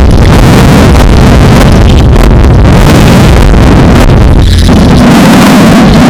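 Harsh, heavily clipped and distorted noise at full loudness: a digitally overdriven logo soundtrack. Deep rumble in the first part, giving way about four and a half seconds in to a strong lower hum.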